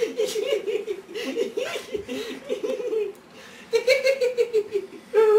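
Young men laughing in long runs of quick ha-ha pulses, with a short lull partway through. Near the end a voice slides down in pitch.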